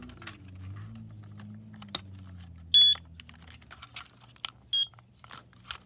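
Two short, high-pitched beeps about two seconds apart from an older LP2 battery-powered carbon monoxide alarm on a nearly dead battery, amid small handling clicks and knocks.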